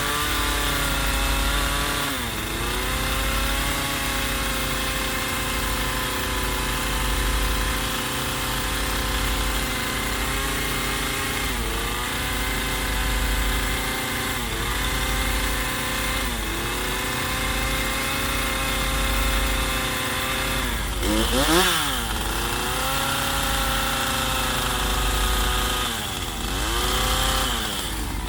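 Chainsaw running at high revs, carving into a wooden log. Its pitch sags briefly now and again as the chain takes load in the cut, with one sharp drop and swoop back up a little past two-thirds of the way through.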